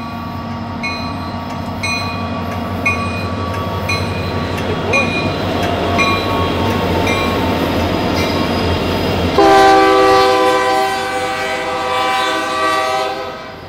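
Union Pacific freight train with three diesel locomotives passing close by: engine rumble, with a bell ringing about twice a second. About nine seconds in, a locomotive's air horn blows a loud chord of several notes for about three and a half seconds.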